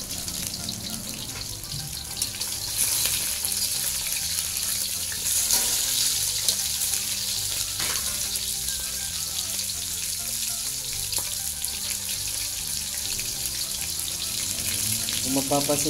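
Snakehead fish frying in shallow oil in a wok: a steady sizzle with a few crackles.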